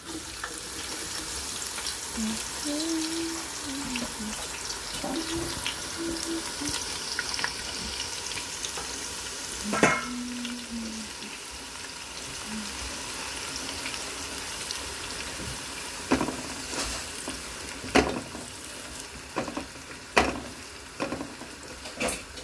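Sliced onions sizzling steadily as they fry in hot oil for beresta (crisp fried onions), with a few sharp knocks of stirring against the pot.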